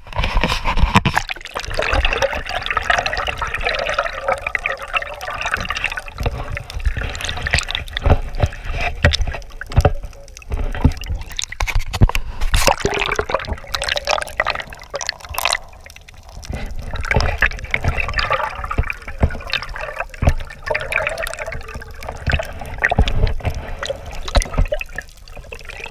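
Water splashing and dripping close to the microphone from a kayak paddle, with irregular knocks and low rumbling throughout.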